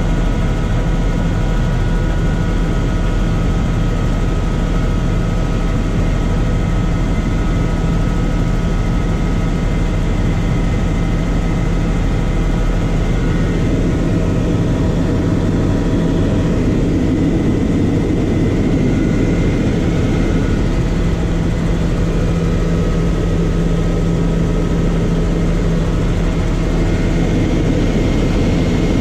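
Loud, steady cabin noise of a helicopter in flight: a deep drone from the rotor and engine, with several steady higher tones running through it.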